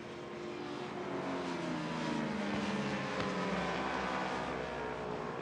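Several superbikes racing past at full throttle, their engine notes overlapping and sliding in pitch as they pass. The sound grows louder over the first two seconds, then holds steady.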